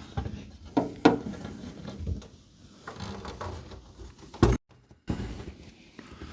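Knocks and scrapes from handling a heavy wall mirror hung on a single screw while it is shifted to get it level, with a sharper knock about four and a half seconds in.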